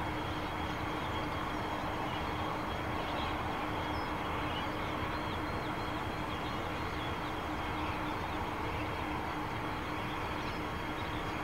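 Diesel-electric freight locomotives idling at a standstill: a steady engine rumble with a constant hum. A few faint bird chirps come about three to five seconds in.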